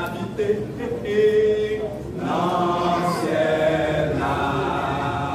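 Men's gospel choir singing in church: a single voice holds a note, then the full group of male voices comes in together about two seconds in.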